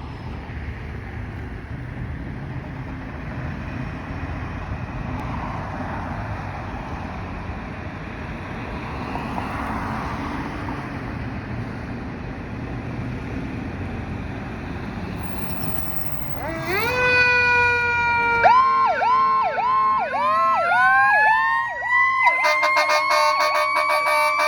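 Fire truck siren: a steady low rumble of engine and road noise, then about sixteen seconds in the siren starts, rising in pitch and switching to a fast up-and-down yelp. It then glides up into a held wail, and a lower steady tone joins it near the end.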